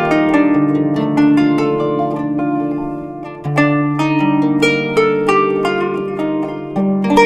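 Kanun, the Turkish plucked zither, playing a quick run of plucked notes over lower notes left ringing. The music thins out around three seconds in, then a new phrase starts with strong plucks.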